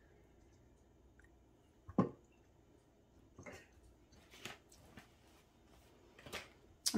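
Kitchen handling sounds: one short, soft knock about two seconds in, then a few faint taps and rustles, with no speech.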